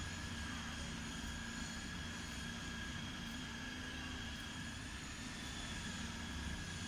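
Steady low background hum with a faint, even high whine above it; no distinct events.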